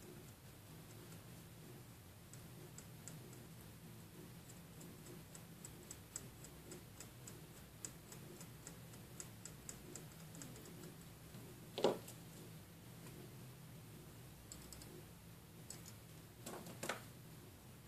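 Light ticking and tapping of a soldering iron and tweezers working on a phone board's camera flex-cable contacts, over a low steady hum. There is one louder knock about twelve seconds in and a couple of clicks near the end.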